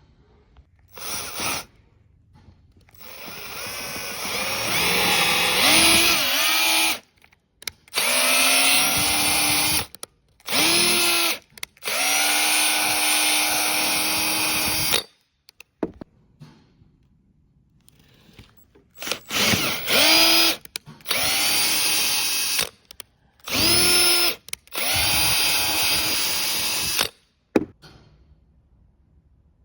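Power drill running in about nine separate bursts, its motor whining up to speed at the start of each and cutting off sharply, as new mounting holes are drilled for a truck mudflap.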